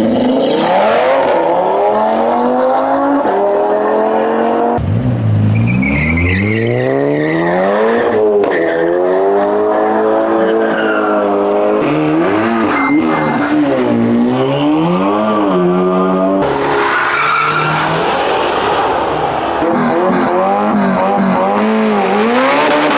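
High-powered cars accelerating hard on a drag strip, engines revving up through the gears. The pitch climbs and falls back at each shift, over and over.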